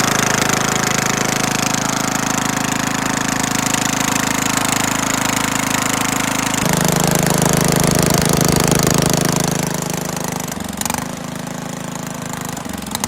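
Racing lawn mower's engine running loud and rattly. Its note shifts about halfway through, then dips and picks back up near the end.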